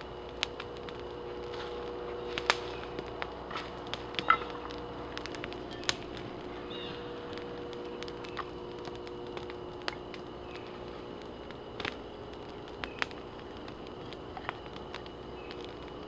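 Wood campfire of fine sticks burning hard, crackling with irregular sharp pops over a steady rush of flame; the loudest pop comes about four seconds in.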